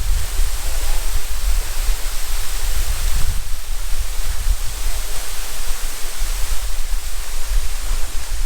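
Steady rush of water pouring down a waterfall, with a low, uneven rumble underneath.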